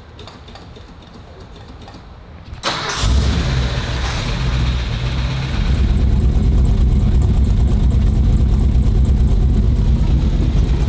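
Old Ford pickup's engine starting about three seconds in, then running steady and loud through its newly fitted Magnaflow muffler, growing louder a couple of seconds after it catches.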